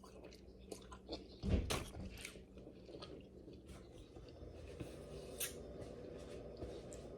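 Close-miked eating of king crab: chewing and crunching with scattered small cracks and clicks, and one loud knock about one and a half seconds in.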